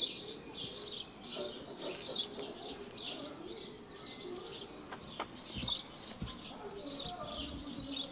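Songbirds chirping outdoors, many short high chirps repeating several times a second, over a faint background murmur.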